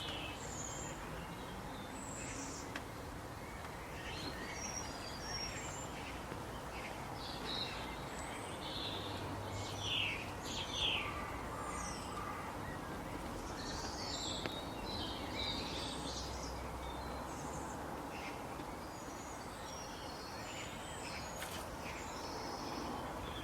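Birds chirping and calling in short, scattered notes over a steady background hiss.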